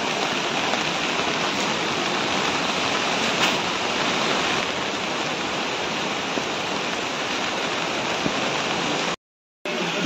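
Steady hiss of heavy falling water, the sound of rain or a waterfall, even throughout; it cuts off abruptly a little after nine seconds.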